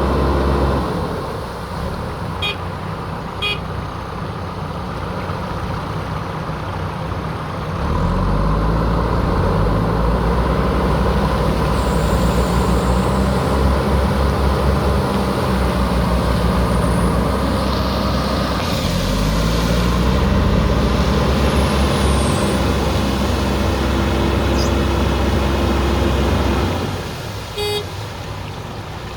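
Diesel engine of a JCB backhoe loader running at low revs, then revving up under hydraulic load about eight seconds in and holding high. It dips and climbs again about two-thirds of the way through, then drops back toward idle near the end.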